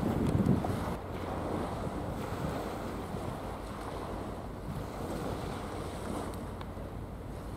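Wind buffeting the microphone in uneven gusts, hardest in the first second, over a steady low rumble.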